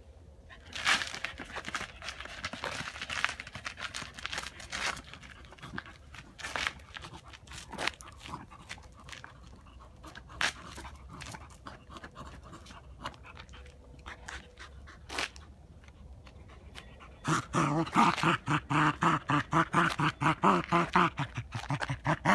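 Small dog playing with a ball on asphalt: scattered scuffs, knocks and rustles of the ball and paws on the pavement. About 17 seconds in, the dog starts quick, rhythmic, voiced panting, several huffs a second.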